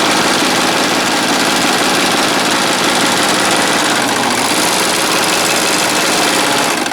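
Husqvarna Viking Amber Air S|600 serger running steadily at sewing speed, stitching a four-thread overlock seam on a piece of fabric; the machine stops at the very end.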